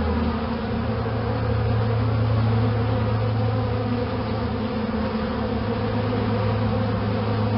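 Swarm of bees buzzing: a dense, steady drone with a strong low hum, stopping suddenly at the end.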